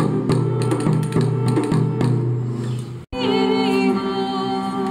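Medieval music: quick plucked notes on a lute-like string instrument; about three seconds in the sound cuts off abruptly and gives way to women singing over steady held drone notes.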